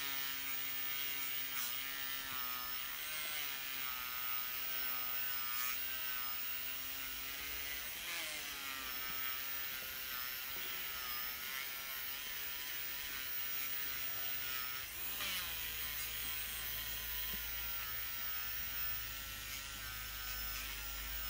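Worx WX739 MakerX brushless rotary tool running at its lowest speed, a felt polishing wheel buffing a metal ring with polishing paste. Its steady whine wavers up and down in pitch as the wheel is pressed against the metal.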